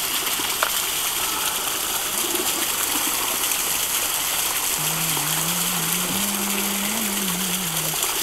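Natural spring water running and splashing in a steady rush. A low wavering hum joins in for about three seconds past the middle.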